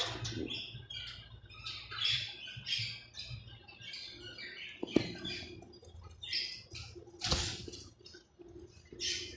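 Small parrot chirping over and over in short high calls. There is a sharp knock about five seconds in and a brief rustling burst a little after seven seconds.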